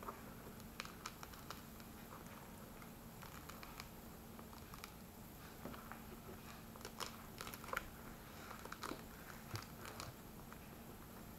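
Faint crackling and tearing as the thick outer skin of a dried luffa gourd is peeled off by hand, with scattered sharp snaps that come more often in the second half.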